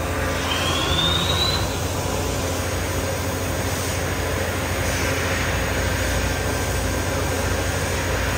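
Steady hum and hiss of a CNC vertical machining center running under power, with a short rising whine about half a second in.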